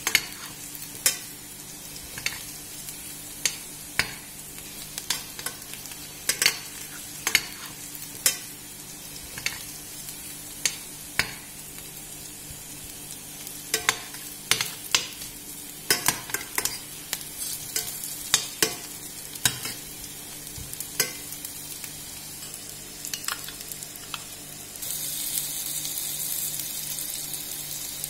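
Metal spoons clinking and scraping against a stainless steel frying pan as smashed baby potatoes are turned, over a steady sizzle of potatoes frying in olive oil. Near the end the sizzle grows louder and hissier as seasoned oil with garlic and paprika goes into the hot pan.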